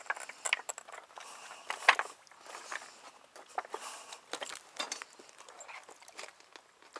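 Irregular scuffs, clicks and rustles close to the microphone, as someone shifts about on shoreline rocks and handles fishing gear. The loudest click comes a little before two seconds in.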